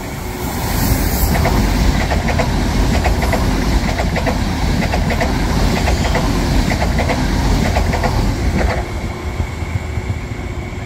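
Frecciarossa 1000 high-speed electric train passing through a station at speed: a loud rush of wheels on rail with repeated quick clacking as the wheelsets run over rail joints. The noise drops off sharply near the end as the last cars go by.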